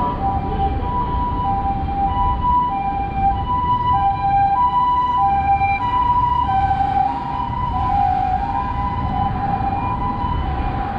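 Japanese ambulance siren sounding its two-tone hi-lo "pee-poh" pattern, switching between a higher and a lower pitch about every two-thirds of a second, over the steady rumble of road traffic.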